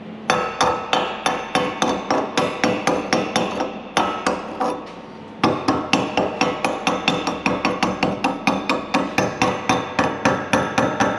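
Chipping hammer knocking slag off a fresh stick weld clamped in a bench vise: quick ringing metal blows, about three a second, with a break of a second or so around four seconds in.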